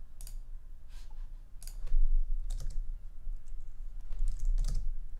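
Computer keyboard keystrokes and mouse clicks, irregular and scattered, with a steady low hum underneath.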